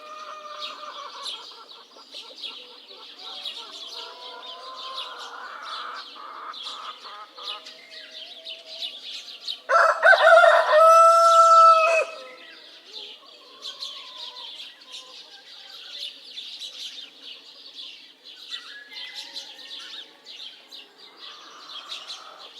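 Village morning ambience: small birds chirping steadily, with softer fowl calls and clucking scattered through, and a rooster crowing loudly about ten seconds in, lasting about two seconds.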